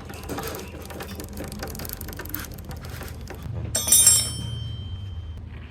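Noisy motorcycle drive chain running, a quick stream of small clicks and rattles over a steady low hum. About four seconds in comes a brief, louder burst with high-pitched metallic ringing that fades out over the next second or so.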